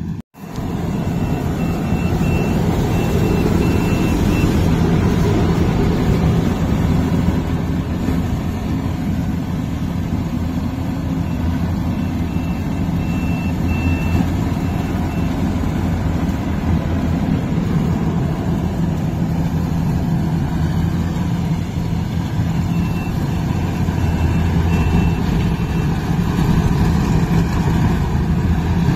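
Heavy diesel engine of rice-harvesting farm machinery running steadily, with a high electronic beeper sounding rapid beeps in three spells of a few seconds each.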